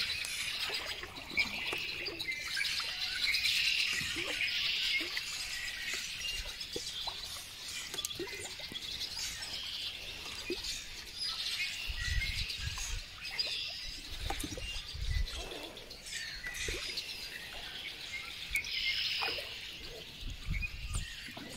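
A dense chorus of many wild songbirds chirping and calling together, with a few soft low rumbles around the middle.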